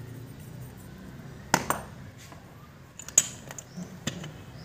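Steel transmission gears and synchro rings clinking against each other as they are handled and slid off the gearbox mainshaft: a few sharp metallic clinks, the loudest about one and a half and three seconds in.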